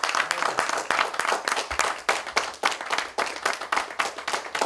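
Audience applauding in a small hall: many hands clapping in a dense, continuous patter.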